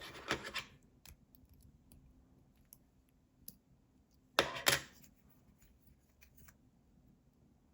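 Small clicks and scrapes from handling a lock cylinder's tiny pins and tools on a bench: a short scraping burst at the start and a louder one about four and a half seconds in, with faint ticks between.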